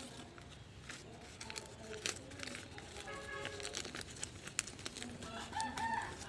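Chickens clucking in the background, with a louder pitched call near the end, over crackling clicks from a banana leaf being torn and unrolled by hand.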